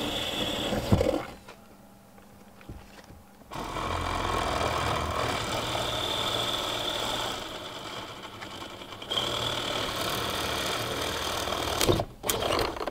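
A power tool running in three bursts of a few seconds each, working through the wall siding from behind, with a sharp crack about a second in and another near the end as the siding splits.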